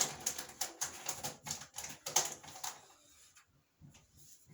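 A quick run of light clicks and rustles for about three seconds, then only a few faint ticks.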